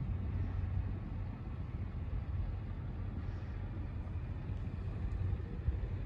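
Onan 4000 RV generator running steadily as a low rumble, warming its oil before the oil change.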